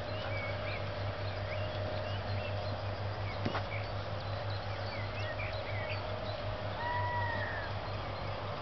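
Outdoor ambience of scattered bird chirps over a steady low hum, with one sharp click about three and a half seconds in and a short tone that rises and falls about seven seconds in.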